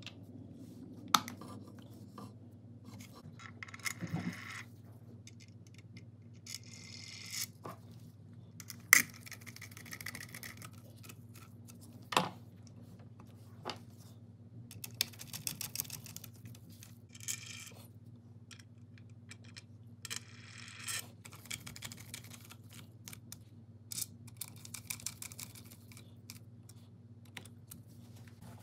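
Hard plastic and metal handling noises from the black D-shaped side handle of a Makita 6013B drill being pressed onto and fastened to the drill's housing: scattered sharp clicks and knocks with short spells of scratchy scraping. A faint steady low hum runs underneath.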